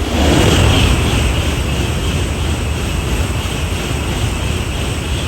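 Shinkansen bullet train passing at high speed: a loud rush of air and wheel noise that sets in suddenly and holds steady, with a hiss over it.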